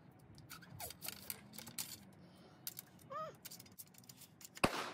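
Steel ramrod of a .69-calibre Model 1842 smoothbore musket being worked in the barrel during muzzle-loading, making a series of light metallic clicks and scrapes. A single loud, sharp crack comes near the end.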